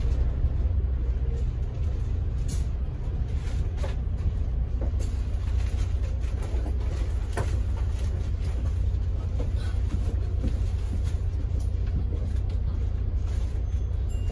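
London double-decker bus running, heard from the upper deck: a steady low rumble, with a few faint clicks now and then.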